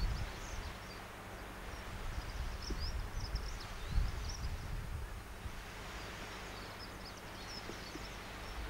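Small birds chirping and twittering in scattered bursts, over low irregular rumbles of wind buffeting the microphone that are strongest at the start and about four seconds in.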